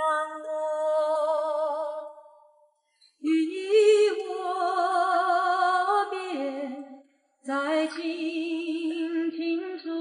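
A woman singing slowly in long held notes with a wide vibrato, in three phrases with short breaths between, almost unaccompanied, played back through a car's audio system as a sound-system listening test.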